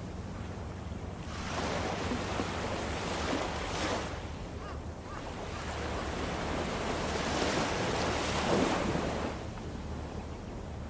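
Small waves breaking and washing up a sandy shore, the surf swelling twice as a wave comes in, over a steady low rumble.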